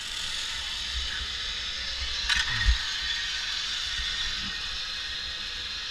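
Zip-line trolley pulleys running along the steel cable, a steady whirring hiss, with a sharp metallic clank about two and a half seconds in as the trolley is handled on the cable. Wind rumbles on the microphone.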